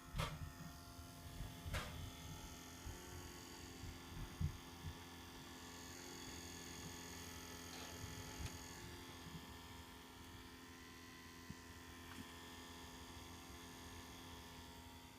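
Faint steady electrical buzz, made of several steady tones, from the engine bay of a 2003 Seat Leon Cupra with the engine switched off; the owner thinks it is the alternator. A few low bumps come in the first few seconds.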